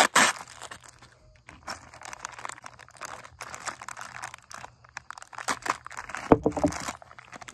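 Packaging crinkling and rustling in irregular bursts as a new set of dirt-bike handguards (bark busters) is unpacked and handled, with a louder knock about six seconds in.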